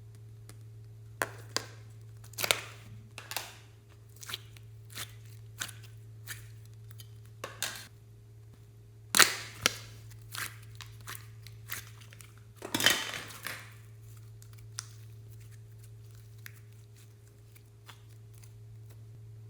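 Slime being kneaded and stretched by hand, giving irregular sharp clicks and pops, loudest about nine seconds in and again around thirteen seconds. A steady low electrical hum runs underneath.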